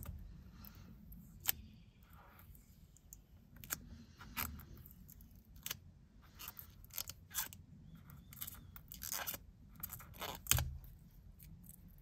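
Clear protective plastic film being peeled off a new steering wheel's trim: irregular crinkling and crackling with a few sharper clicks. The loudest is about ten and a half seconds in.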